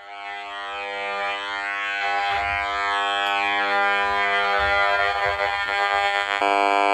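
Steady electronic buzzing drone with many even overtones, siren-like. It fades in from silence and grows louder, with faint sweeping tones gliding above it.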